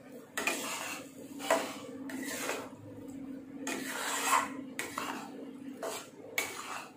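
A long-handled spatula stirring and scraping thick, watery pav bhaji around a kadai, in a run of irregular scrapes and knocks against the pan.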